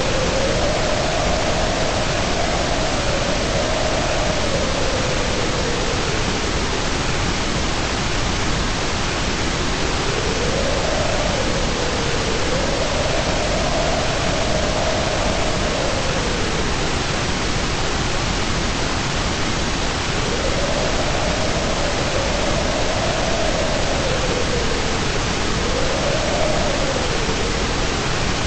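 Steady white noise hiss. A faint mid-pitched tone rises and falls over it in slow swells, about every ten seconds.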